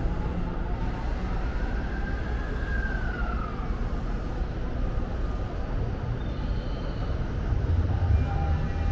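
Low, steady rumble of electric commuter trains at a station platform, with a whine that rises and then falls about two seconds in. Near the end a steady whine joins a louder rumble as a JR train pulls out.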